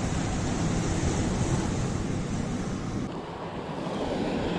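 Wind buffeting the microphone over the wash of surf breaking on rocks. About three seconds in, the wind rumble drops away and the hiss of the surf is left.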